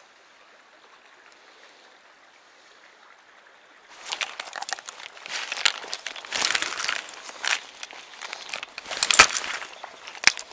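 Faint steady flow of a stream, then from about four seconds in a run of loud crackling and rustling close to the microphone, handling noise, loudest near the end.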